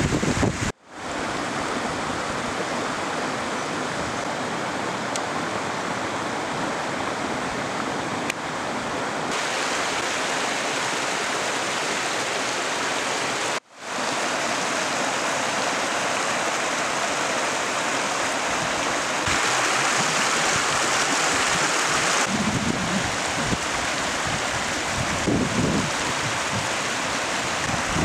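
Steady rush of a shallow rocky stream flowing over stones.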